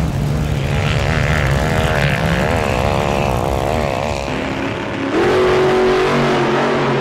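Off-road 4x4 engine revving hard on a steep sand-hill climb, its pitch wavering rapidly as the revs rise and fall. About five seconds in, outro music with steady held notes comes in.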